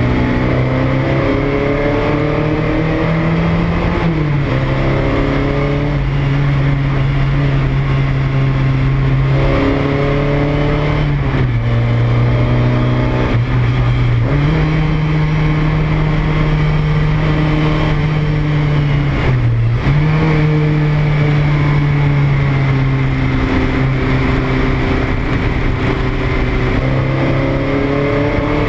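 Porsche 924 race car's four-cylinder engine heard from inside the cabin, its revs climbing and dropping back every few seconds through gear changes and lifts, with a steady rush of noise underneath.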